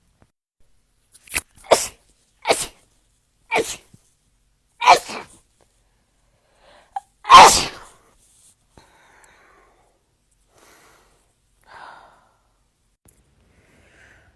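A person sneezing again and again during an allergy attack: about six sudden sneezes in quick succession, the loudest about seven seconds in, then quiet.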